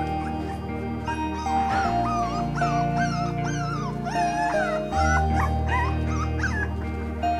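Three-week-old soft-coated Wheaten Terrier puppies whimpering and yipping: a run of short, high cries that bend up and down in pitch, starting about a second in, over background music with long held notes.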